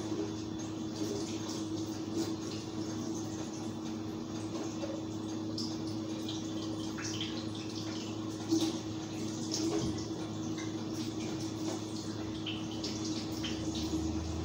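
Food frying in oil on a stove: a steady sizzle with scattered small crackles over a steady low hum. There is one brief soft thump about eight and a half seconds in.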